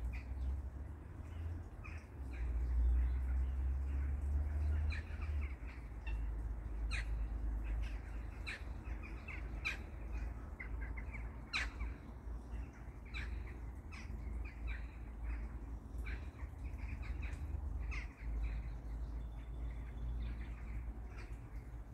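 Birds calling, with many short chirps and calls scattered throughout. Beneath them is a steady low rumble, loudest from about two to five seconds in.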